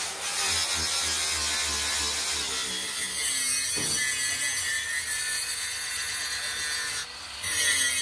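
Electric angle grinders working stainless steel sheet. First a sanding disc smooths the inside of a tank; from about three seconds in, a grinding disc runs on the outside wall with a steady whine. The sound dips briefly about a second before the end, then resumes.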